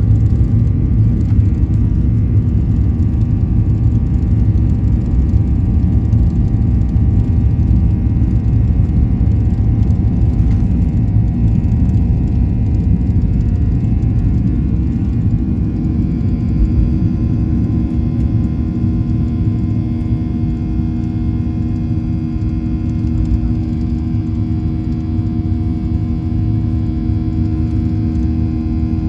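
Cabin noise of a Ryanair Boeing 737 on its takeoff roll and climb-out: the jet engines at takeoff thrust with a loud, steady rumble. About halfway through the rumble eases a little and steady engine tones come through above it.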